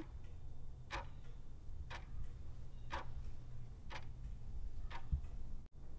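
Clock-style tick sound effect marking a quiz countdown timer: five short ticks, one a second, over a low background hum.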